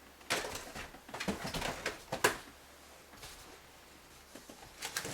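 Boxed toys being handled: a quick run of clicks and rustles of packaging in the first couple of seconds, then a pause and another click near the end.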